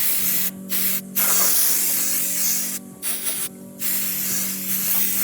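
Aerosol spray can hissing in a run of bursts with short gaps between them, the longest nearly two seconds, over a steady low hum.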